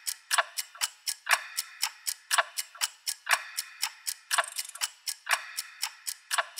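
Clock ticking, about four ticks a second, with a stronger tick once a second.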